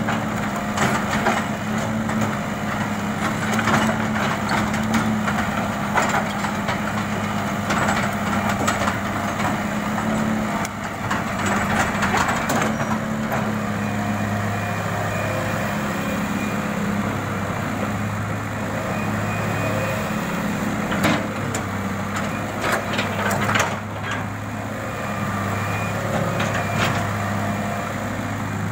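Hitachi EX200-1 hydraulic excavator's diesel engine running steadily while it works, with scattered sharp clanks and knocks from the machine several times.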